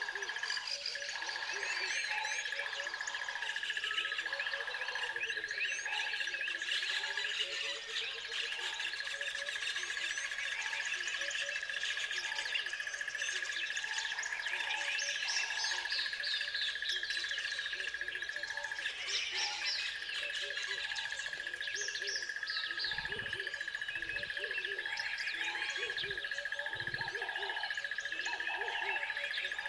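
A chorus of many birds chirping and singing over one another, with many quick rising and falling chirps and trills. A steady high tone runs underneath, and lower repeated calls come and go.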